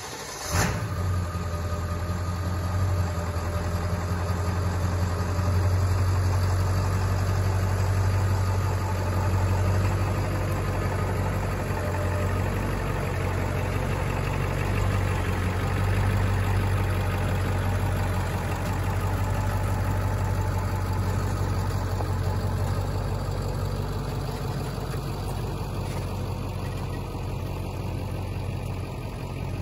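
Ford F-250 pickup truck's engine running at low speed as it backs up to and tows a travel trailer, a steady low drone. A single sharp knock sounds near the start.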